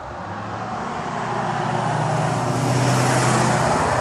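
A truck driving past close by: engine and tyre noise growing louder to a peak about three seconds in.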